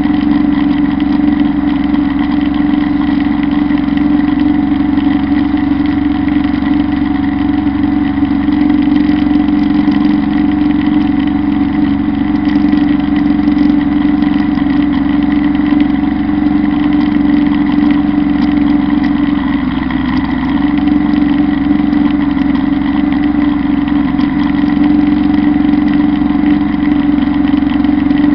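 Kubota Bulltra B1-17 compact tractor's diesel engine running steadily under load, driving a Zanon drum mower that is cutting tall grass. A steady drone that eases slightly about twenty seconds in.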